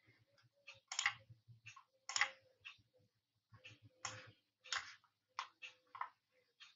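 Faint, uneven clicking and tapping from a computer pointing device being worked, about three taps a second with a short pause near the middle.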